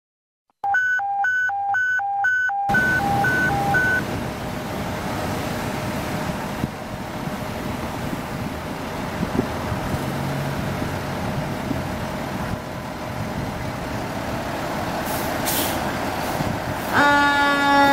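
Diesel engine of a 2012 KME Severe Service fire engine running steadily. At the start an electronic beeping repeats about two and a half times a second for a few seconds, then fades. Near the end comes a short hiss of air, and in the last second a Federal Q2B mechanical siren starts sounding.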